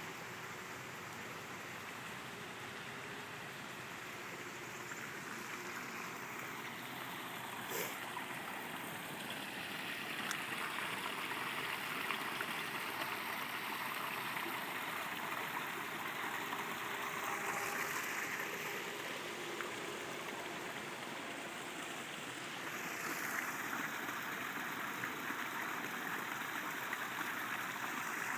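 Small waterfall of water spilling from a concrete outlet over stones into a pond: a steady splashing rush that grows louder about a third of the way in and again near the end.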